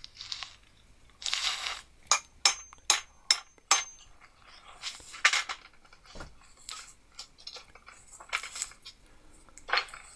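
Hammer tapping a drift punch to drive a retaining pin out of an old four-jaw lathe chuck: a quick run of about six sharp metallic taps with a ringing note, between scrapes and clinks of steel parts being handled.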